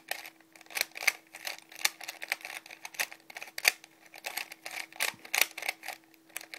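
Plastic layers of a homemade 3x4x5 puzzle cube being turned fast in the hands, giving irregular sharp clicks and clacks several times a second, over a faint steady hum.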